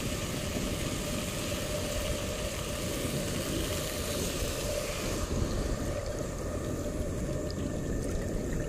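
Water poured slowly from a steel mug into a hot kadhai of masala-fried fish on a gas burner, giving a steady hiss over a low rumble; the hiss thins out about five seconds in as the water settles into the pan.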